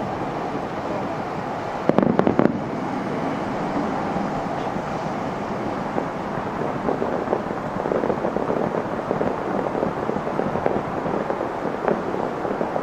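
A fireworks display heard from about 2.5 km away. A quick cluster of sharp booms comes about two seconds in, followed by a continuous rumble of many smaller bursts and crackles.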